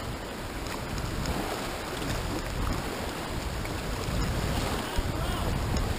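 Fast, high creek water rushing over a Class I–II riffle, a steady wash of moving water, with wind rumbling on the microphone underneath.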